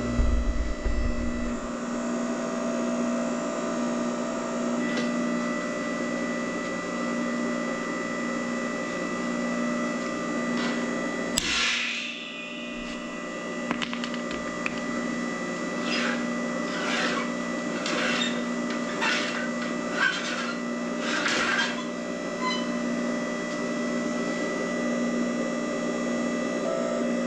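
Electric power tool running steadily with a pulsing hum, with a sharp click about eleven seconds in and then a series of short rasping bursts, as if cutting or drilling in short passes.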